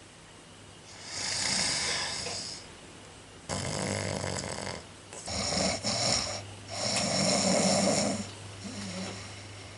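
Snoring: about five snores in a row, the last one faint.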